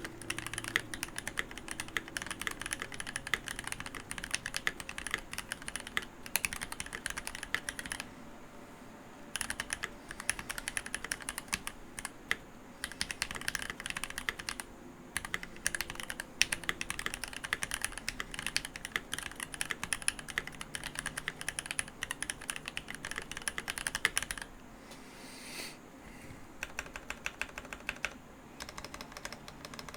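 Keychron V1 mechanical keyboard with Gateron Cap Milky Yellow linear switches and GMK ABS keycaps, typed on quickly and steadily, in a dense run of key clacks broken by a few brief pauses.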